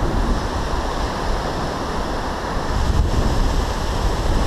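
Shallow ocean surf washing steadily over a flat sand beach, with wind rumbling on the microphone.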